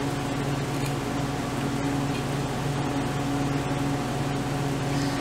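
Steady machine hum: a low drone with two constant low tones over an even hiss, unchanging throughout.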